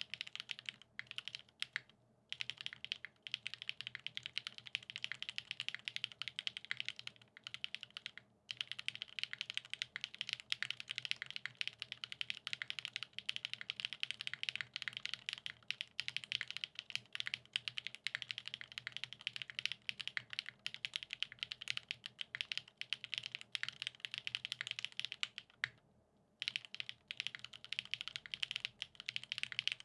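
Continuous fast typing on a custom mechanical keyboard with lubed Gateron X SW Pure Berry linear switches on a polycarbonate top-mount plate and GMK doubleshot ABS keycaps: a dense stream of keystroke clacks, with brief pauses about 2, 8 and 26 seconds in.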